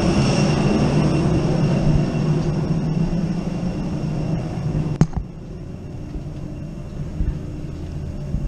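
Steady low hum of a parked airliner's ventilation and machinery, with a faint high whine, heard at the aircraft door. A sharp knock comes about five seconds in, after which the noise drops to a quieter steady hum in the jet bridge.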